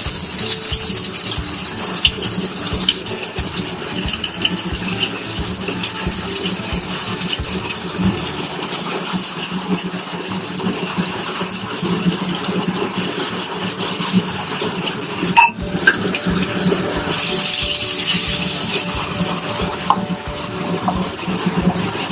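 Onion-garlic paste and ground spices sizzling in hot oil in a kadhai, with a plate and spatula clinking and scraping against the pan. The sizzle is loud at the start, dies down within a second, and flares again about seventeen seconds in; there is a sharp click about fifteen seconds in.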